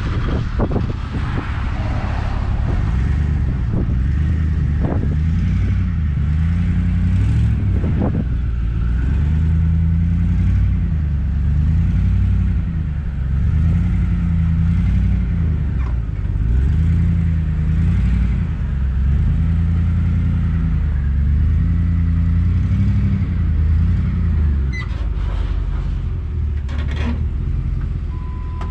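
A vehicle engine running while driving slowly, its pitch rising and falling over and over as the throttle comes on and off.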